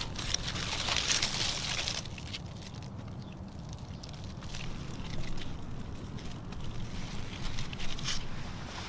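Leaves and vines rustling as a hand pushes through melon plants, loudest in the first two seconds and again near the end, over a steady low rumble.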